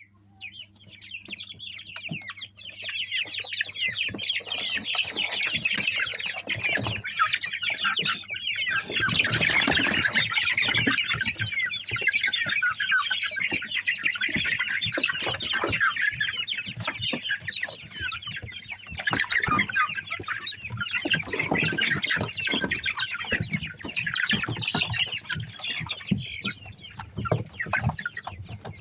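A flock of chickens calling all at once in a dense, continuous chatter, with a steady low hum underneath.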